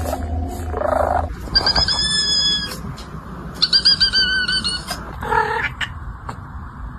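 A series of AI-generated animal calls: a pitched call at the start, then two high, drawn-out, slightly wavering calls about a second each, and a short meow-like call near the end.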